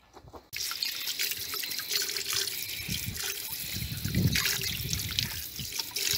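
Water from a tap running over a fish fillet rinsed by hand and splashing into a bowl of water below. The water comes on suddenly about half a second in.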